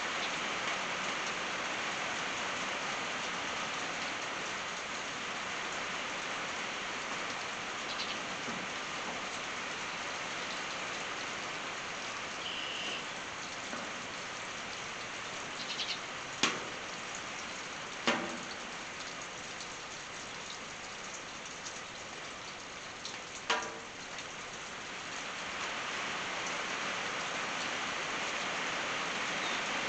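Steady rain on a tin roof, an even patter. A little past halfway, three sharp louder taps stand out from it.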